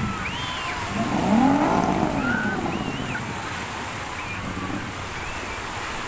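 Steady wash of sea surf. About a second in, one long pitched call rises and falls, with fainter short higher calls scattered over it.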